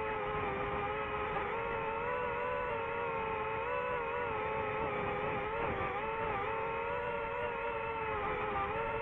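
DJI FPV drone's motors and propellers whining in flight, the pitch rising and falling as the throttle changes, over a rough rush of air noise.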